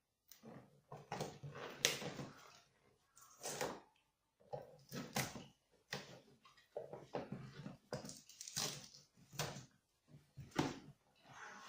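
Packaging being handled during a helmet unboxing: irregular rustling and crinkling in short bursts with brief pauses between them.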